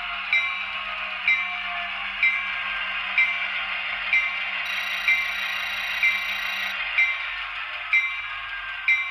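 Sound-equipped model diesel locomotive running, its bell ringing about once a second over a steady engine hum as it pushes hopper cars slowly across the track scale.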